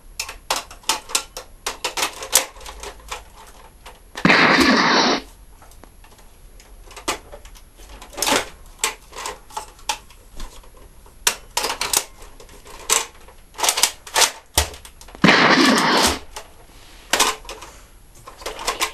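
Nerf Rampage toy blaster being worked: many sharp plastic clicks and clacks from its pump-action slide and mechanism, with two louder, roughly one-second rasping noises about four and fifteen seconds in.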